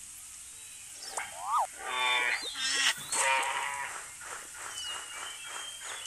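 A string of animal calls: a quick rising-and-falling whistle-like call about a second in, then two louder pitched calls with a quavering tone, then a steady pulsing call repeating about three to four times a second.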